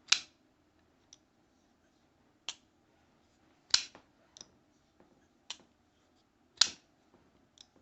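Damn Designs Invictus flipper knife being flicked open and snapped shut, about eight sharp clicks at uneven gaps of roughly a second, some loud and some faint.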